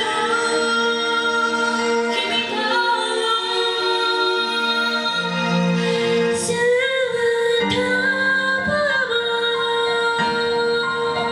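A woman singing a song with instrumental accompaniment, holding long notes with a few sliding pitch changes.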